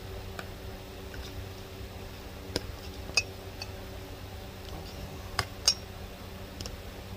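A serving utensil clinking and tapping against a bowl and baking pan while sausage is scooped out. About half a dozen separate clinks are spread out, the sharpest about three and five and a half seconds in, over a steady low hum.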